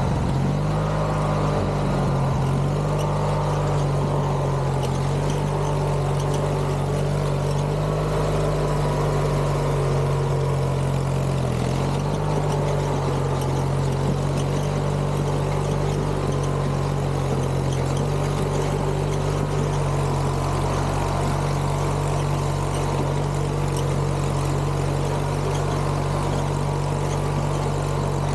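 Craftsman GT6000 garden tractor's engine running steadily under way, with a brief dip in engine speed partway through.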